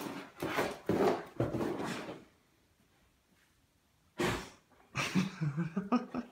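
Akita huffing and snuffling in quick noisy bursts while playing with a plush toy, then quiet for about two seconds. A single thump about four seconds in, followed by more huffing and low grumbles near the end.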